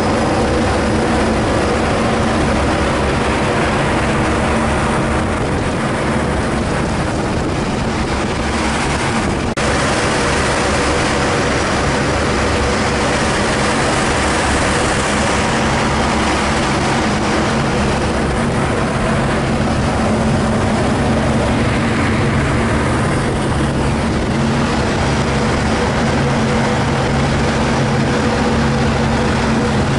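Passenger ferry's engines running steadily while underway, a continuous low drone with the rush of wind and water over it.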